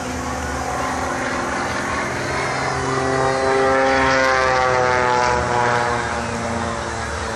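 Aerobatic biplane's propeller engine running as the plane makes a low pass. The sound grows louder about three seconds in, then drops in pitch as the plane goes by.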